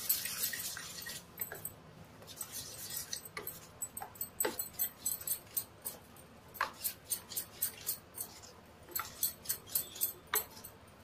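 Metal spoon stirring a thick rawa-and-paneer batter in a steel bowl, scraping and clinking against the bowl, with a fast run of clinks in the second half.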